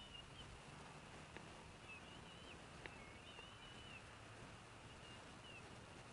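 Faint bird calls: short, thin, high-pitched wavering notes about once a second over a steady background hiss, with a couple of light clicks.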